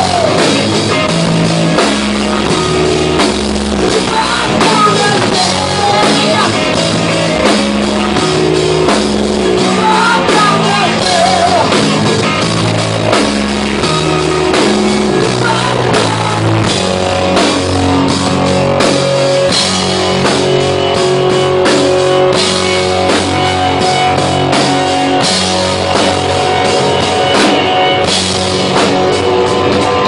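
Rock band playing live at full volume: a drum kit, electric guitars and bass, with a voice singing over them.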